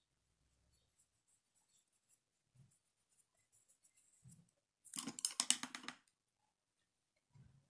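Faint scratching of a fine paintbrush dabbing paint onto fabric, then about five seconds in a loud burst of rapid clicking lasting about a second as the brush is lifted away from the cloth.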